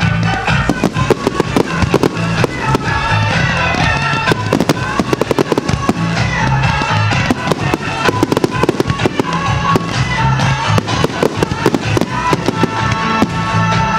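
Fireworks display: a dense run of shell bursts, bangs and crackling, over music with a steady repeating bass line.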